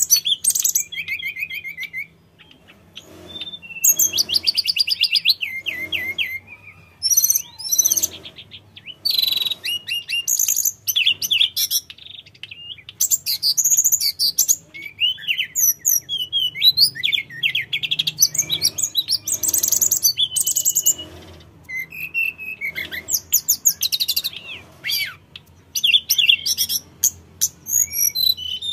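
Hill blue flycatcher singing in quick bursts of high, varied whistles and rapid trills, with short pauses between phrases.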